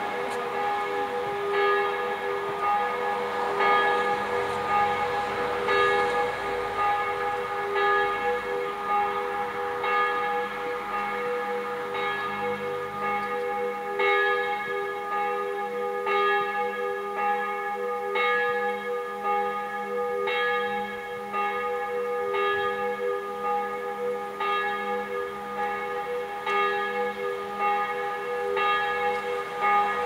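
Church bells ringing in a continuous peal: repeated strikes whose tones ring on and overlap.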